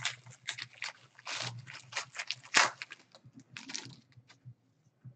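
Foil wrapper of a trading-card pack being torn open and crumpled: a run of sharp crinkling crackles that stops about four seconds in.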